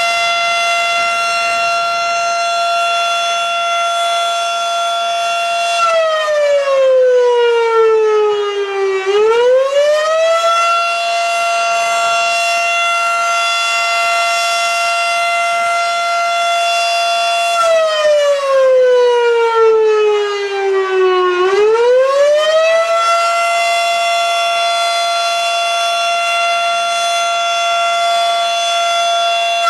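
Federal Signal Model 5 mechanical fire siren wailing for its weekly test: a loud, steady tone held for about six seconds, then sliding down in pitch and quickly climbing back up, twice.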